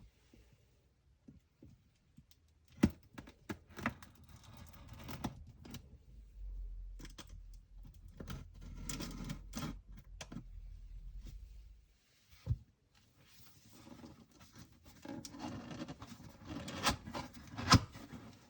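Packaging being handled while the fan's box is unboxed: rustling and scraping of cardboard and wrapping, broken by several sharp knocks.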